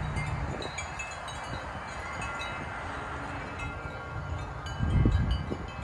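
Dozens of metal tubular wind chimes hanging in a tree, ringing in scattered, overlapping strikes as the breeze moves them. A low rumble of wind on the microphone swells about five seconds in.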